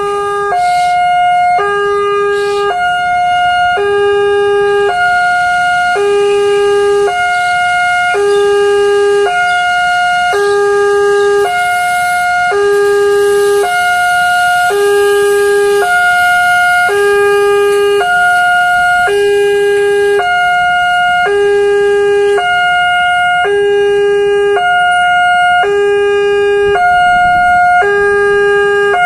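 Indonesian railroad level-crossing warning siren sounding continuously. It is loud and steady, and its tones step back and forth between a low pitch and higher pitches about once a second, warning that a train is approaching.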